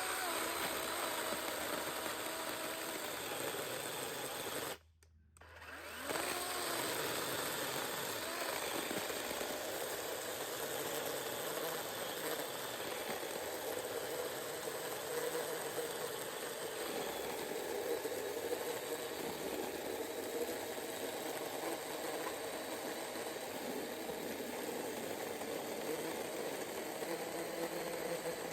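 DeWalt 20V cordless 12-inch electric chainsaw running steadily as its chain cuts through a thick branch that nearly fills the bar's full depth. About five seconds in the motor stops briefly, then winds back up and keeps cutting.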